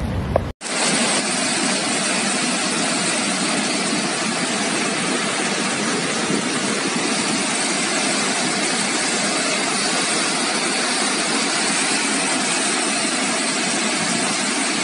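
Floodwater from heavy rain rushing down a swollen river channel past a bridge: a steady, loud rushing noise that begins after a short break about half a second in.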